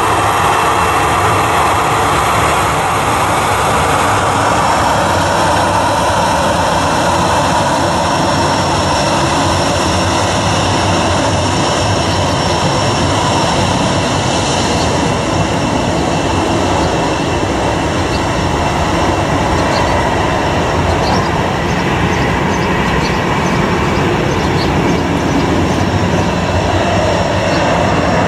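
Twin jet engines of a Boeing 737 running at taxi power as it moves onto the runway: a steady, loud rushing noise.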